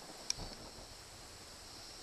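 A single sharp metallic click from a ratchet wrench working a spark plug in an outboard's cylinder head, with a brief dull knock right after. A steady high insect drone runs underneath.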